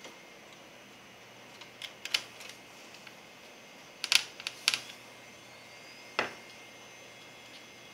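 Sharp plastic clicks and taps on the Acer Aspire One netbook, in scattered groups: a couple about two seconds in, a tight cluster around four seconds and one more near six seconds.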